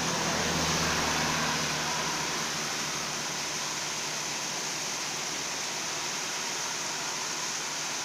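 Seasonal waterfall running down a karst limestone rock face: steady rushing and splashing water.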